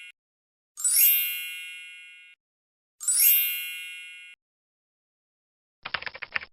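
Two bright chime dings about two seconds apart, each ringing out and fading before cutting off abruptly. Near the end comes a quick run of keyboard-like typing clicks.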